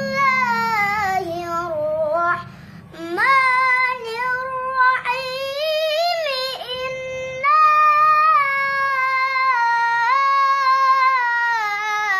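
A boy reciting the Qur'an in a melodic tilawah style. His high voice holds long, drawn-out notes that slide up and down, with short breaks for breath about two and a half seconds and six and a half seconds in.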